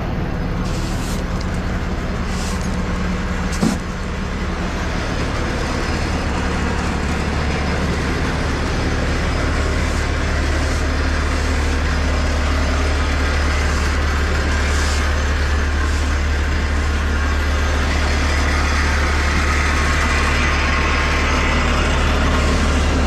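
A motor vehicle's engine running with a steady low drone, with one sharp knock a little under four seconds in.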